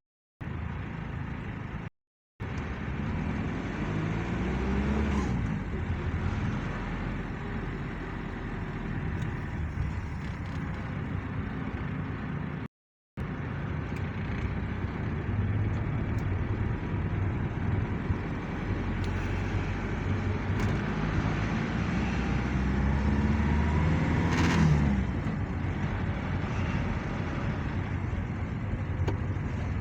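A car driving with engine and road noise; the engine rises in pitch as it accelerates, once about four seconds in and again around twenty-three seconds in. The sound cuts out completely for a moment twice.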